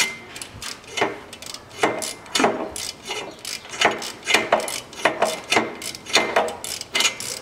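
Ratchet wrench clicking in short, irregular runs as it backs off an already-loosened nut on the exhaust downpipe flange through a flexible extension, with metal tool clinks.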